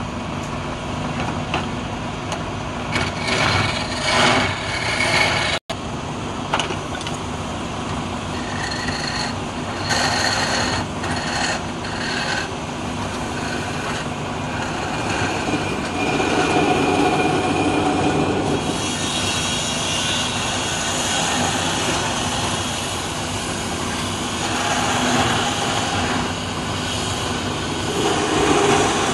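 Wood lathe running while a hand-held chisel cuts a spinning wooden spindle: a steady motor sound with the shifting scrape of the tool on the wood. The sound drops out for an instant about six seconds in.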